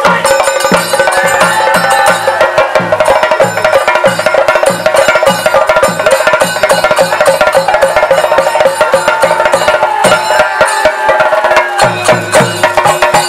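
Theyyam ritual music: chenda drums beaten in a fast, steady rhythm with cymbals, under a wavering, sustained melody on a kuzhal reed pipe.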